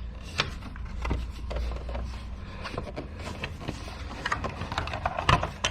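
Plastic parts of a Renault Kangoo side mirror being handled and fitted together: scattered light clicks and knocks with some rubbing, the sharpest knock near the end.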